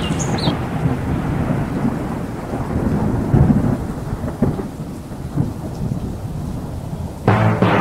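Thunderstorm sound effect: a long rolling rumble of thunder over rain, slowly fading. Music comes in near the end.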